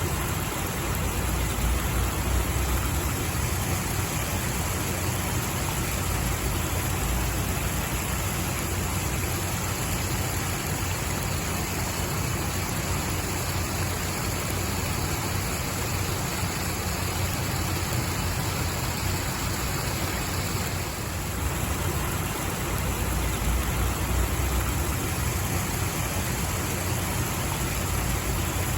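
Steady rushing water, an even, unbroken noise with a heavy low rumble, dipping slightly for a moment about two-thirds of the way through.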